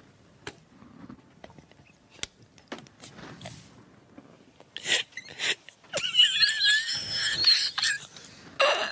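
A man's stifled laughter. A few soft breaths and clicks, then from about five seconds in high, wavering squeals of suppressed laughter, with a last burst near the end.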